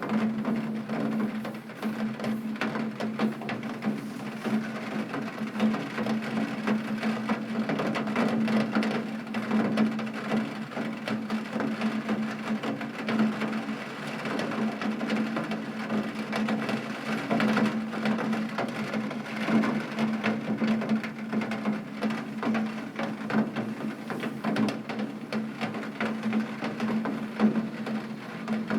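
Rain falling on a tin roof: a dense, steady patter of countless small drop ticks on metal, with a constant low hum underneath.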